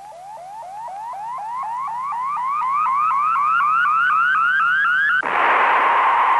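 Synthesized electronic sound effect: a rapid run of short rising chirps, about four a second, climbing steadily in pitch and growing louder. About five seconds in it switches abruptly to a steady hiss.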